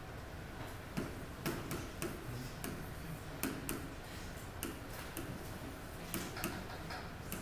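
A stylus tapping and clicking against the glass of an interactive touchscreen display as digits and letters are written. The taps are sharp, irregularly spaced and come about a dozen times.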